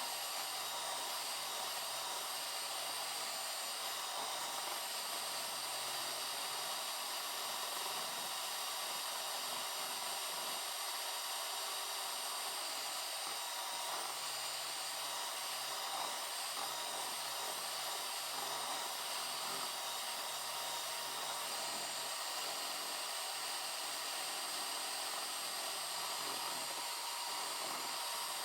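Small electric motor running steadily, a constant whir with a thin high whine.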